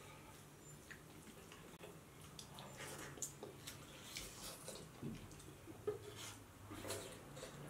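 Faint sounds of eating by hand: chewing and lip smacks on chicken curry and rice, with soft squelches of fingers mixing rice on a plate. One sharper click about six seconds in.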